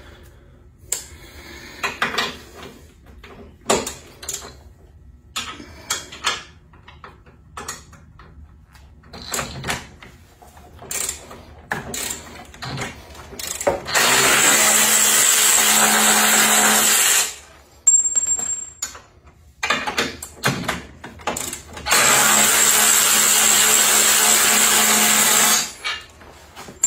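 Cordless drill running twice, about three and a half seconds each time, a third and then three quarters of the way in, as it drives out the bolts that hold the mower's battery tray. Before that come scattered clicks and knocks of tools and metal parts being handled.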